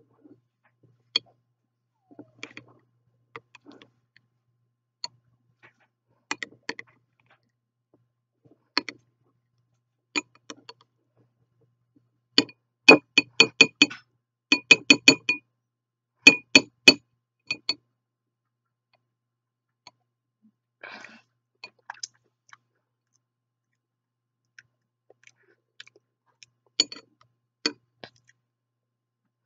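Metal spoon clinking and scraping against a glass bowl while stirring a thick avocado-ranch dip: scattered clinks, with a quick run of rapid, ringing clinks in the middle.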